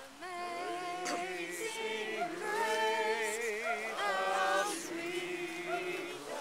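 A few voices, women's among them, singing a song unaccompanied, holding long notes with a wavering vibrato.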